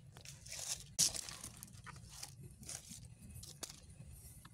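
A kitten chewing and crunching on crispy fried chicken, an irregular run of crunches and tearing with the loudest about a second in.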